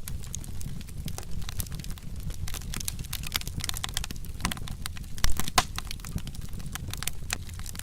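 Wood fire crackling with irregular small pops and snaps over a low, steady rumble of flame, with a louder pop about five and a half seconds in.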